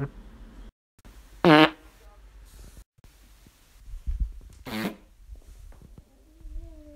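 Two short, buzzing human farts: a loud one about a second and a half in, and a second, quieter one near the five-second mark.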